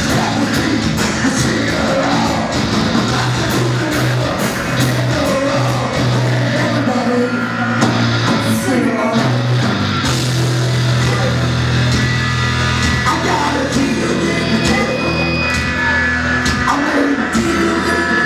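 Live rock band playing loud and steady, with a vocalist singing over heavy bass and guitars.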